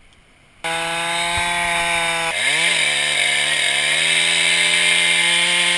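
Gasoline chainsaw cutting into a redwood log, starting suddenly about half a second in. The engine's pitch dips and climbs back a couple of seconds in, then runs steady until it cuts off suddenly.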